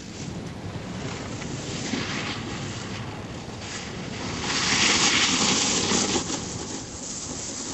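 Wind rushing over the microphone as a steady, noisy rush that swells louder for a second or two past the middle.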